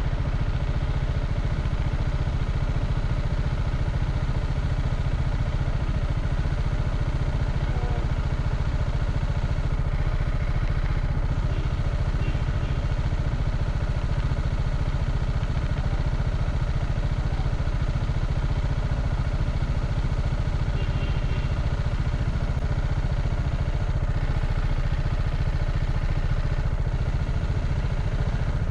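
TVS Apache RR 310's stock single-cylinder engine and exhaust running steadily on the move, under a heavy low rumble.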